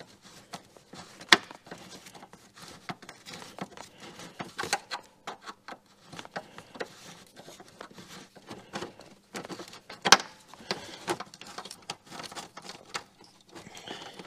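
Irregular clicks, taps and knocks of hand tools and metal parts being handled while a part is worked loose from a car engine. Two sharper knocks stand out, about a second in and about ten seconds in.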